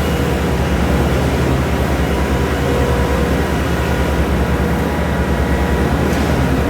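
Steady, loud running of a heavy engine on concrete-slab machinery, a low hum with a few faint steady whine tones above it.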